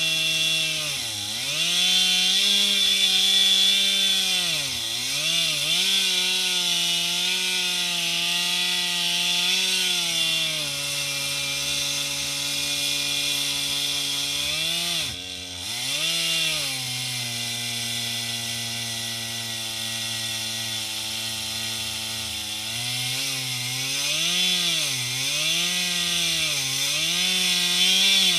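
Stihl 441 two-stroke chainsaw on an Alaskan chainsaw mill, ripping lengthwise through a spruce log. The engine runs at high revs with its pitch sagging and recovering again and again as the cut loads it. A little past the middle it drops briefly, then runs lower and steady for several seconds before wavering again near the end.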